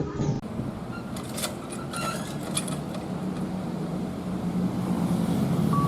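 A large vehicle engine running steadily, growing louder through the second half, with a few light ticks and short high tones early on.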